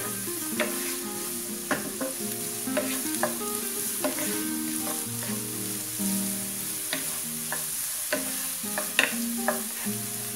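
Diced carrots and green beans sizzling in hot ghee in a nonstick frying pan, stirred with a wooden spatula that knocks and scrapes against the pan at irregular moments, roughly once a second.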